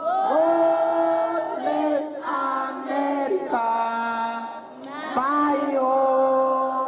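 A crowd of voices singing an anthem together without instruments, in long held notes, with a brief pause between phrases a little past the middle.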